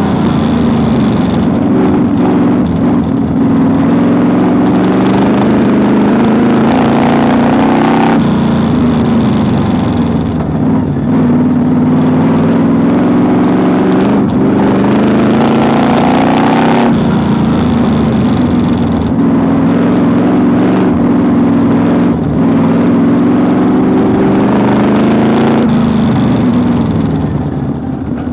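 Vintage modified dirt-track race car's engine under hard throttle, heard from inside the car. Its pitch climbs down each straight and drops sharply when the throttle is lifted for the turns, three times over the lap cycle. Near the end the engine falls back to lower revs and runs quieter.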